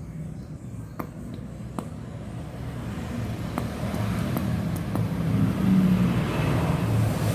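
A low, steady engine rumble like passing road traffic, growing louder after about four seconds. A few faint sharp clicks sound over it.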